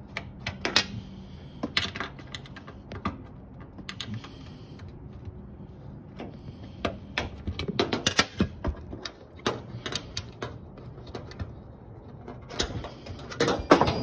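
Wrench working a corner bolt inside a top-load washing machine cabinet: irregular metallic clicks and knocks, some in quick runs, with the loudest clatter near the end as something drops down inside the machine.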